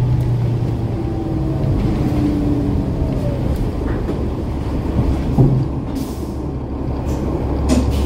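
Diesel bus engine, the Cummins ISL9 of a 2011 New Flyer Xcelsior XD40, running with a faint falling whine in the first few seconds, then a steadier, deeper hum from about six seconds in. A brief air hiss comes near the end.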